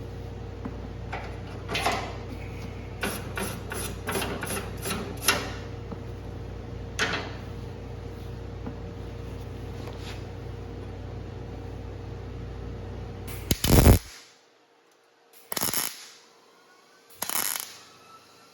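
MIG welder laying short tack welds to fill a gap in thin 20-gauge sheet steel: a quick run of brief zaps in the first few seconds, a few single ones, the loudest burst a little past halfway, then two longer ones near the end. The thin metal at the gap edge is starting to open up under the heat.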